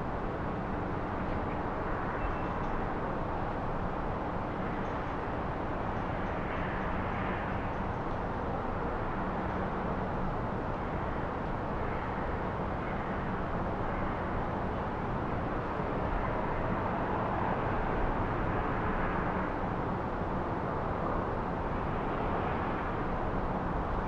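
Steady hum of distant town traffic, an even wash of sound with no single event standing out.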